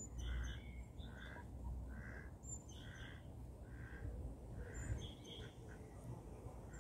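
Mallard ducks calling softly, a slow even series of short quacks about one a second, with a few short high chirps from small birds.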